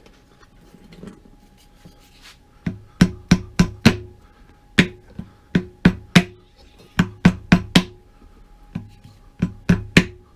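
A Pepsi can rattling and knocking, sharp taps in irregular quick clusters starting about three seconds in, several with a short ringing tone, over a faint steady hum.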